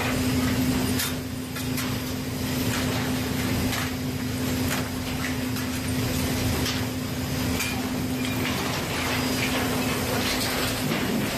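Industrial belt conveyor machinery running, a steady hum over broad mechanical noise, with occasional short knocks of stones and rubble on the moving belt.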